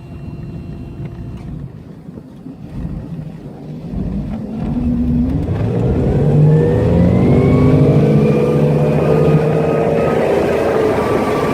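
A 5.7-litre V8 sterndrive boat engine running low and quiet, then throttled up about four seconds in, its pitch rising over a few seconds before holding steady at higher revs as the boat gets under way.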